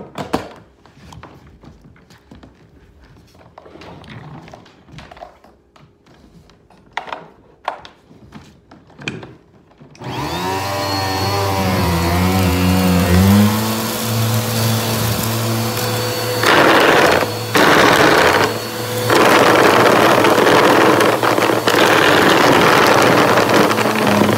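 Bissell upright vacuum cleaner switched on about ten seconds in: its motor whines up to speed over a few seconds, then runs steadily. From about sixteen seconds it gets louder in rushing surges as the nozzle is pushed over the hardwood into a pile of dust and debris. Before it starts there are only a few faint knocks and clicks.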